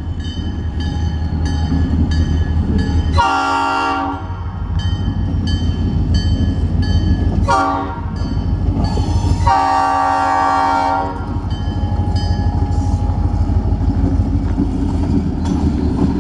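EMD SD40-2 diesel locomotive's multi-chime air horn blowing three blasts, one about a second long, a short one, then a longer one: the close of the long-long-short-long grade-crossing warning. Under it the locomotive's two-stroke V16 diesel runs with a steady low throb, and a high ringing note repeats at an even pace.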